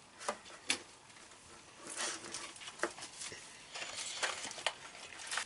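Soft tabletop handling sounds of a plastic squeeze bottle of sauce being squeezed: a few small clicks and two short hissing squirts, the second longer, near the middle and towards the end.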